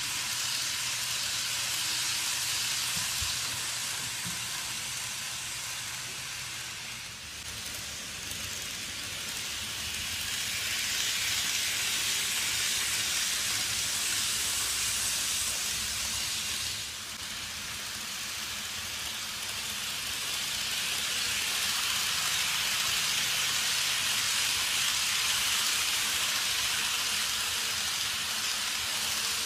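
N-gauge model Shinkansen trains running on a looped track: a steady rushing hiss of small wheels on the rails and the motor, swelling and easing as the trains pass close by, with brief dips about seven and seventeen seconds in.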